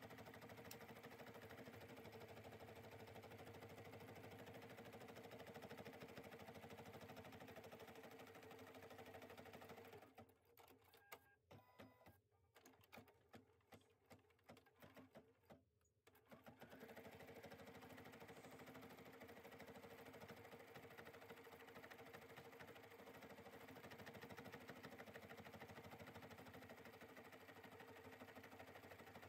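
Bernina 790 embroidery machine stitching an appliqué, a faint steady hum. About ten seconds in it stops for some six seconds, leaving only a few faint irregular clicks, then starts stitching again.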